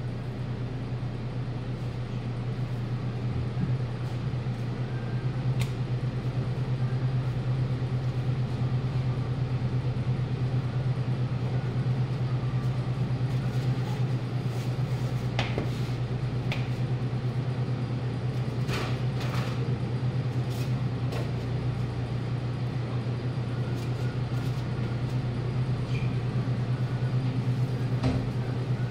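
Steady low machine hum from the meat room, with a few light clicks and taps as foam trays and absorbent pads are handled and steaks set down.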